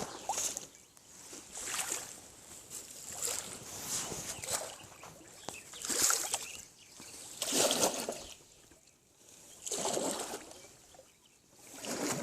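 Oars or paddle dipping and splashing in water as a small boat is rowed, one swishing stroke about every one and a half to two seconds.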